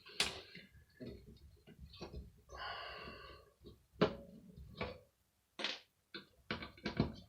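Scattered clicks and taps of parts being handled while a hand air dryer is taken apart, with a short pitched squeak-like sound about two and a half seconds in.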